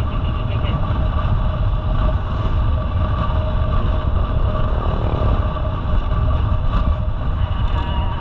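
Wind buffeting the microphone of a camera on a moving road bike, a dense steady rumble, with road noise and a faint steady hum above it.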